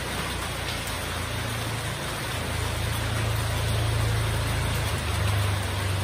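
Heavy rain falling steadily, with a motorcycle engine approaching under it: its low hum grows louder from about a second in.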